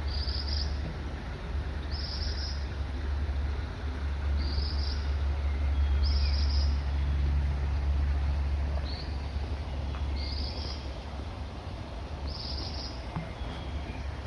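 A bird repeating a short, high call about every two seconds over a steady rush of flowing water, with a strong low rumble of wind on the microphone.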